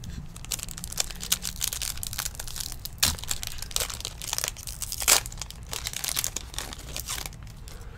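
A trading-card pack's crinkly wrapper being torn open and handled, a dense run of sharp crackles, with two louder rips about three and five seconds in.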